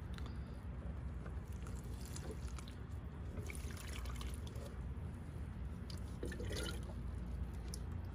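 Liquid compost tea poured from a plastic jug onto the potting soil of a bucket-grown tomato plant, trickling and dripping with small splashes, mostly in the middle of the stretch. A steady low hum runs underneath.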